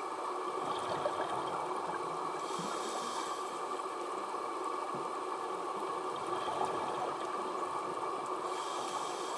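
Underwater ambience recorded on a scuba dive: a steady bubbling, watery noise, with two short higher hisses, about 2.5 s in and again near the end, from the diver's regulator breathing.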